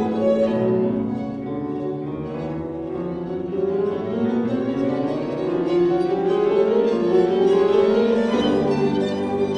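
Piano trio of violin, cello and piano playing a classical chamber piece, with the melody climbing in rising phrases through the middle.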